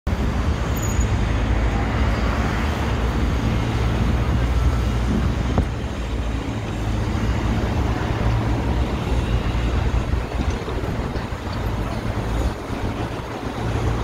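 Steady low rumble of street traffic and construction-site machinery.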